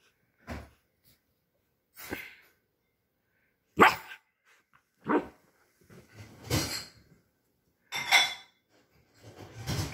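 Poodle puppy barking, short single barks repeated about seven times, the loudest a little before four seconds in.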